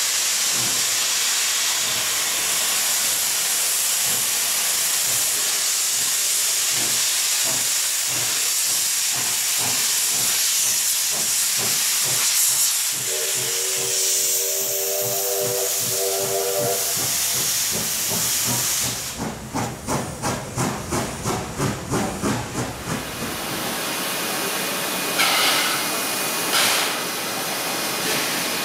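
Steam locomotive moving off through a cloud of its own steam: a loud steady hiss of escaping steam with exhaust chuffs that come faster and faster. A multi-tone steam whistle sounds for about three seconds a little before halfway. The chuffs pulse loudly for a few seconds after that, then the hiss falls to a softer one.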